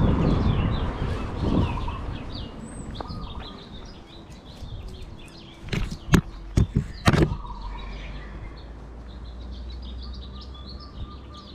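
Small birds chirping over steady outdoor background noise, with a low rumble at the start and a few sharp clicks and knocks about six to seven seconds in.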